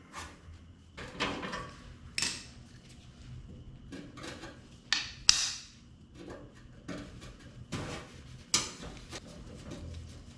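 Metal parts and tools being handled and set down on a workbench during the teardown of an old arc welder: a string of irregular clinks, clicks and knocks, the sharpest about five seconds in.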